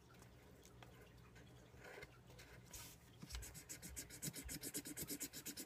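Colored pencil scribbling on paper, faint at first, then rapid, even back-and-forth coloring strokes from a little past halfway.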